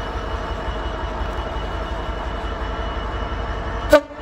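Diesel freight locomotive, a Class 66, running with a steady low rumble and an engine hum. Near the end comes one sharp click and a brief drop in sound.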